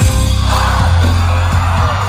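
Loud live concert music from a venue's sound system, heavy with deep bass, recorded from among the audience on a phone. It starts abruptly.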